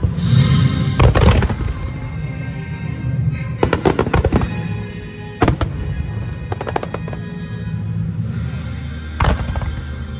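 Aerial fireworks shells bursting, sharp bangs with crackle, the loudest cluster about a second in and more bursts around four, five and a half and nine seconds, over steady music.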